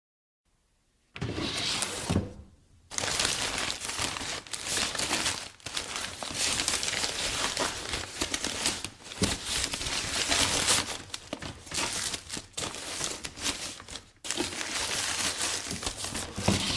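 A drawer being slid and rattled: a long run of scraping, rattling noise with a few short breaks, starting about a second in.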